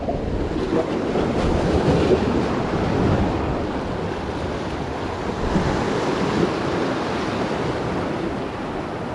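Sea waves surging and washing over the shore rocks, with wind buffeting the microphone.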